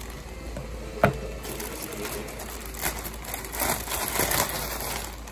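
Black plastic courier bag being torn open and crinkled by hand, with a sharp snap about a second in and then irregular rustling and crackling of the plastic.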